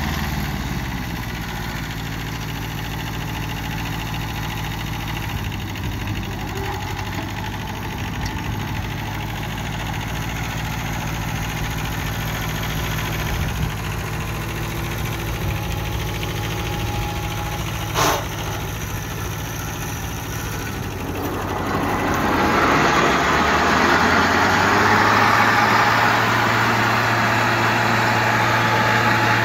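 Kubota L1801 tractor's diesel engine running steadily as it drives, with a single sharp click a little past the middle. About two-thirds of the way in, the engine speeds up and the rear rotary finishing mower runs, adding a louder, steady rushing noise from its spinning blades.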